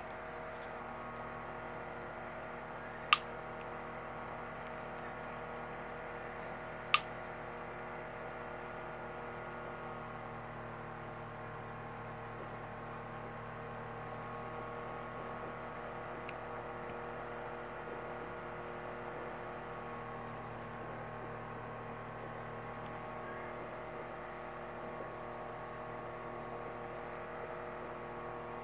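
Electric fan running with a steady hum. Two short sharp clicks come about three seconds in and again about seven seconds in.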